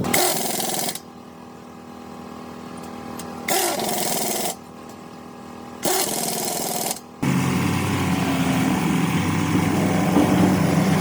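A hand power tool in short loud bursts of work, with its motor whining steadily between them. About seven seconds in it gives way to a steady low engine rumble.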